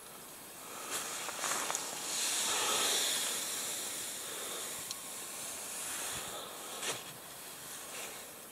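Soft rustling and handling noise from tent fabric as a small hanging tent lamp is held and moved, swelling over the first few seconds and then easing, with a few light clicks.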